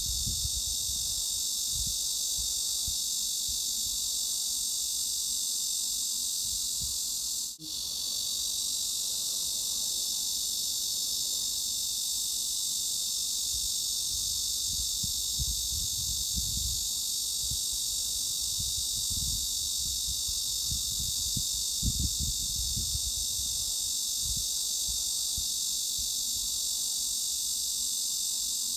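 Continuous cicada chorus: a steady, high-pitched, hiss-like buzz with an uneven low rumble underneath. The sound drops out for a split second about seven and a half seconds in.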